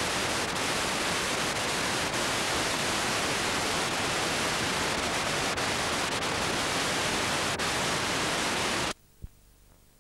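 Steady hiss of static from a blank stretch of VHS tape between recordings. The hiss cuts off suddenly about nine seconds in, leaving near silence broken by a single click.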